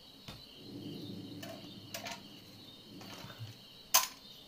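Faint rustling and small clicks as the idol's cloth outfit and ornamented crown are handled, with one sharp click about four seconds in, over a steady high insect chirring.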